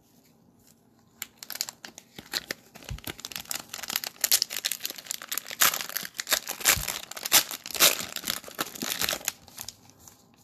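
Cellophane wrappers of trading-card cello packs crinkling and tearing in irregular bursts, starting about a second in and continuing until shortly before the end.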